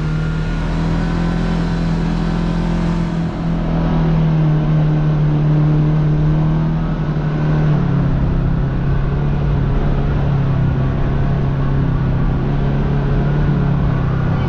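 A side-by-side UTV's engine running steadily while driving along a dirt trail. The engine note shifts a little lower about eight seconds in.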